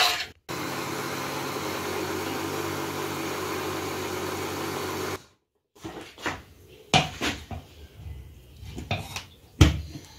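Electric mixer grinder motor running steadily for about five seconds, starting and stopping abruptly. After a pause come several knocks and clatters of the steel grinder jar being handled on the base and against a steel pot.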